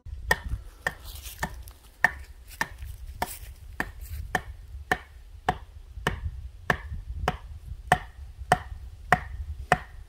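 Gerber knife being batoned through firewood: a steady run of sharp knocks, just under two a second, as a baton strikes the blade's spine.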